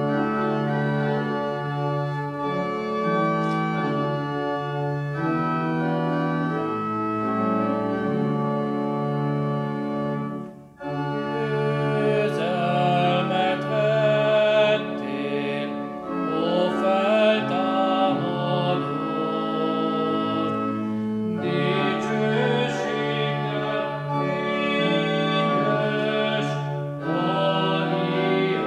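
Organ playing the opening hymn in sustained chords, a short break about eleven seconds in, then singing joins the organ for the verse.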